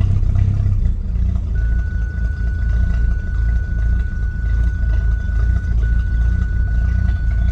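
BMW 750iL's V12 idling with a low, uneven rumble, not answering the throttle. It sounds as if only one bank is running: the owner finds the right bank loud and rich and the left quiet and lean. A thin, steady high tone comes in about a second and a half in.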